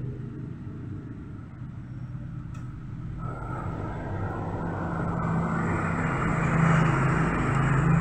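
Car engine running with a steady low hum, growing louder and rougher from about three seconds in.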